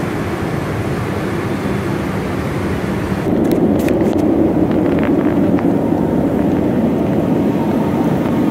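Steady cabin noise of a Boeing 767 airliner in cruise flight, a mix of engine and airflow noise. About three seconds in it turns deeper and a little louder, with a few light clicks.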